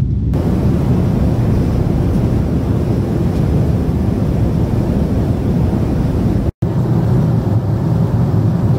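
Jet airliner cabin noise heard from a window seat: the steady low rush of the engines and the air passing the fuselage. It breaks off for an instant about two-thirds of the way through and then goes on as before.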